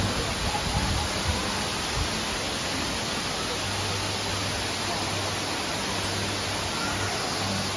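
Tall indoor waterfall pouring down an artificial planted mountain: a steady rush of falling water.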